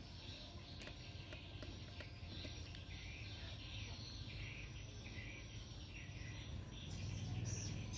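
Faint outdoor background of birds chirping over a low steady hum.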